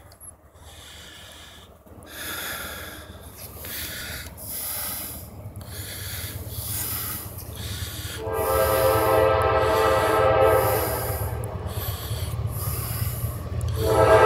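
Railroad grade-crossing bells clanging in a steady rhythm as a Norfolk Southern freight locomotive approaches. Its air horn comes in loud about eight seconds in, eases off, and blows loud again near the end.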